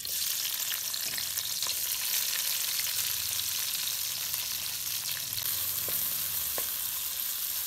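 Sliced red onions sizzling in hot oil in a wok, a steady hiss that starts suddenly as they drop in. A wooden spatula stirs them, with a few faint taps against the pan.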